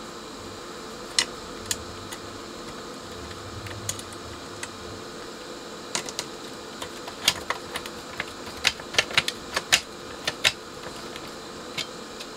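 Small screws and a screwdriver clicking and tapping against a metal equipment front panel as the screws are fitted: scattered sharp clicks, sparse at first and coming thick and fast in the second half.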